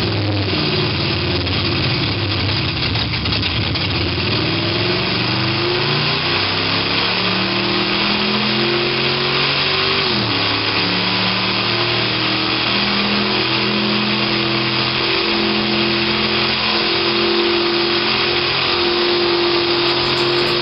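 Simulated sports-car engine sound from the XLR8 iPhone app, sampled from a real car and played through the Prius's sound system. It revs up with speed, drops in pitch at a simulated upshift about ten seconds in, then climbs again and holds.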